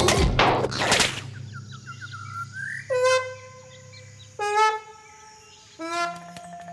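Cartoon sound effects: two loud whooshes, then a few quick rising bird-like chirps, then three held honking horn-like notes about a second and a half apart.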